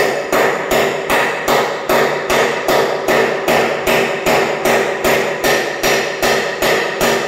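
Rapid hammer blows on the rusted drum shaft of an LG direct-drive front-load washing machine, about three a second, each blow ringing metallically. The shaft is seized with rust from water that got past a failed seal, and is being knocked loose from the tub.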